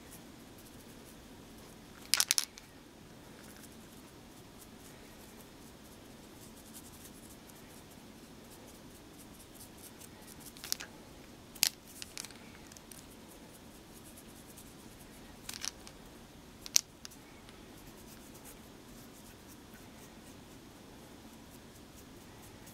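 A few light, sharp clicks and taps from handling a glitter brush pen and a small wooden word cutout: three quick clicks about two seconds in, then scattered single clicks further on, the last one the loudest. A faint steady hum lies under them.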